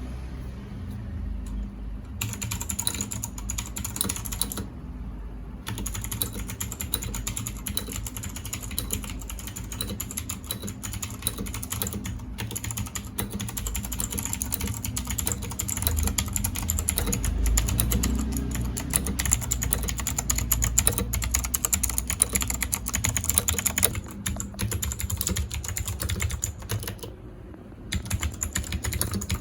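Fast typing on a mechanical keyboard fitted with cheap aftermarket keycaps: a dense, steady run of key clacks that starts about two seconds in, with two short pauses, one about five seconds in and one near the end.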